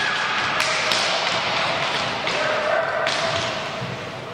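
Inline hockey play in an echoing hall: skate wheels rolling on the wooden floor, with a sharp clack of a stick on the puck about half a second in, and voices calling.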